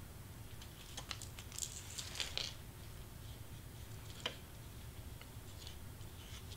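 Faint handling of a cardstock and clear-plastic shaker topper: a few light clicks, taps and rustles as it is pressed and set down on a cutting mat, the sharpest click about four seconds in.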